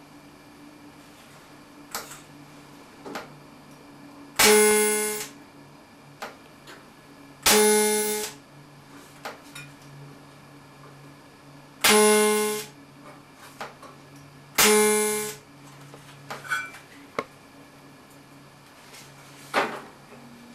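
Four short TIG tack welds on stainless steel, each a brief pitched buzz from the arc lasting under a second, a few seconds apart. A faint steady hum runs underneath.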